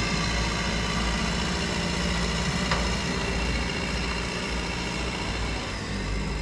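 A heavy machine's engine running steadily at idle, a deep even drone with a faint click about two and a half seconds in.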